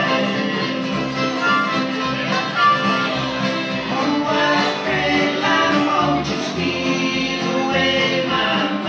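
Live bluegrass band playing an instrumental break: fiddle, strummed acoustic guitars and harmonica over a steady two-beat bass line.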